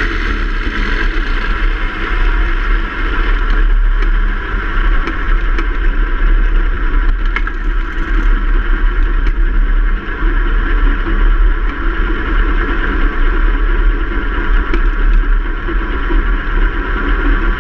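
Open-wheel single-seater race car's engine running steadily, with heavy wind rumble on the onboard microphone as the car drives at track speed.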